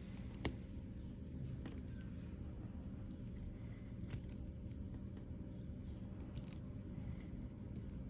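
Small screwdriver working a tiny screw into the nose-pad arm of a metal eyeglass frame: a few faint clicks of tool and frame being handled, with one sharper click about half a second in, over a steady low hum.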